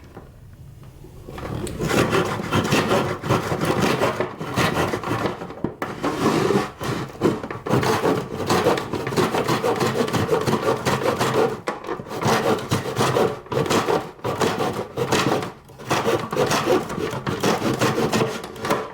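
Hand saw in a miter box cutting straight across a piece of shoe moulding, in steady back-and-forth strokes that begin about a second and a half in.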